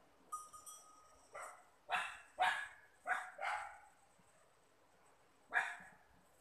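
A dog barking: a quick run of five sharp barks, then a single bark after a pause of about two seconds.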